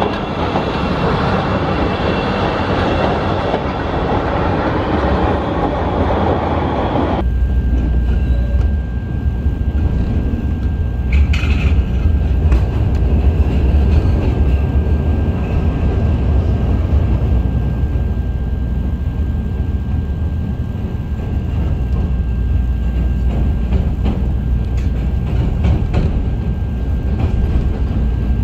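A CTA 5000-series 'L' train passing close by on elevated track, its wheels clattering over the rails. About seven seconds in it switches abruptly to the deep rumble inside a moving train car, with a thin steady high whine and a brief high squeal a few seconds later.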